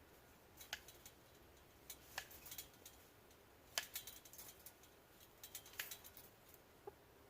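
Scattered sharp clicks and snips in several short clusters over a quiet background.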